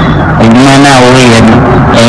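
A man's voice, very loud and distorted, in long drawn-out tones that glide up and down, with a short break about half a second in.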